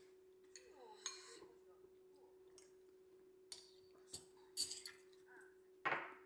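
A metal spoon and chopsticks clinking lightly against ceramic bowls and tableware during a meal, about six short separate clinks, over a faint steady hum.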